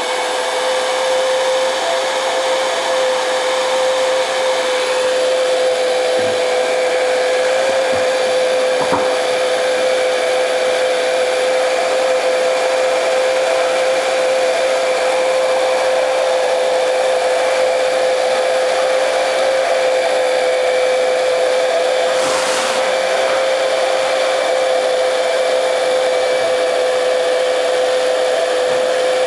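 Electric heat gun running steadily, a constant whine over the rush of blown air, with a couple of faint knocks. It is heating a metal clutch and bearing puller so that the expanded clutch will let its one-way bearing be pressed out.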